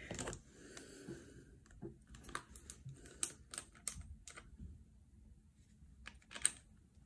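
Light, irregular clicks and taps of a plastic makeup tube being handled and opened to squeeze out foundation.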